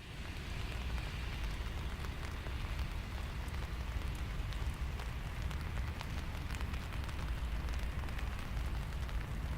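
Steady rain falling, with scattered drop ticks, over a low steady rumble.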